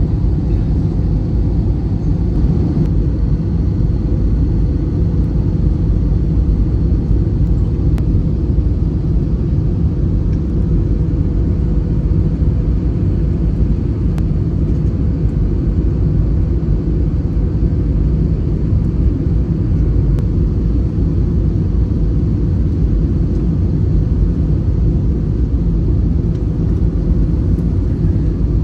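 Steady cabin rumble of an Airbus A320-214 on final approach with flaps extended, heard from a window seat over the wing: CFM56 engine and airflow noise with a faint steady hum through it.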